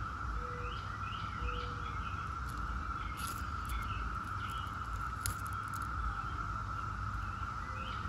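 Brood X periodical cicadas chorusing in a steady, unbroken drone at one pitch. Scattered bird chirps sound over it.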